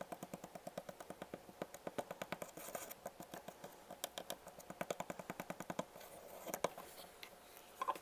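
Dotting tool tapping and scraping on pressed eyeshadow in a palette pan, crushing it into fine powder: quick, even ticks about seven a second that stop about six seconds in. A few louder knocks follow near the end.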